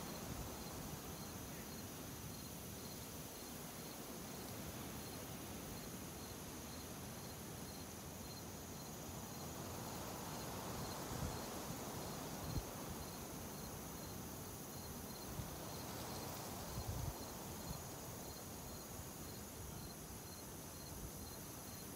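Field insects chirping in a steady rhythm, about two chirps a second, over low wind noise on the microphone with a few soft low thumps.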